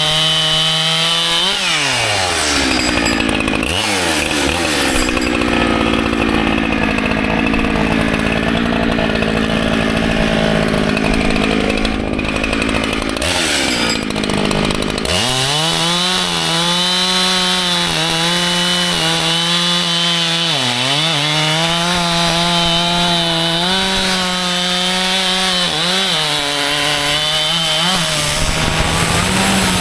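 Echo CS-7310P 70cc-class two-stroke chainsaw at full throttle. About a second in, its pitch drops sharply as it bites into the wood, and it cuts under load for about thirteen seconds. It then revs back up to a high, steady pitch, with two brief dips as it touches the wood again.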